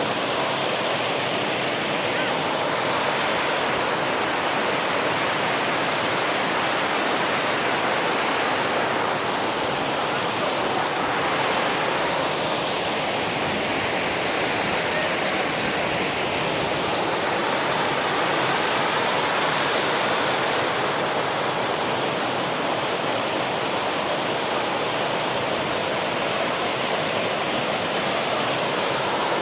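Waterfall: falling water rushing steadily and loudly, with no change throughout.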